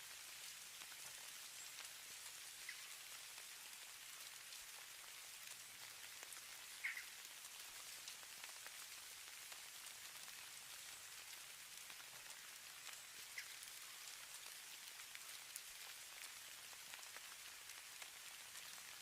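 Falling snow, a faint, steady high hiss sprinkled with fine ticks and patter of flakes or ice grains landing. A few slightly sharper ticks stand out, the loudest about seven seconds in.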